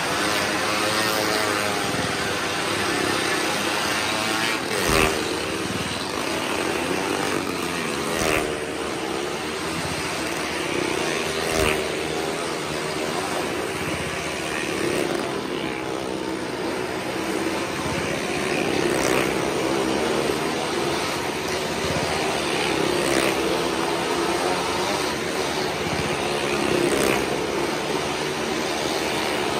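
Several motorcycles running around the vertical wall of a well-of-death, their engine notes wavering up and down as they circle. A sharp knock cuts through every few seconds.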